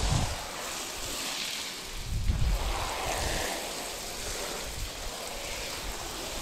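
Hose spray nozzle spraying water through a wet horse tail and onto brick paving, a steady hiss of spray and splashing. Low rumbles on the microphone near the start and about two seconds in.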